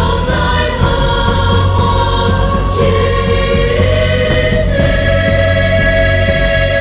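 Choral music: several voices singing long held notes that change pitch every second or so, over a steady low accompaniment.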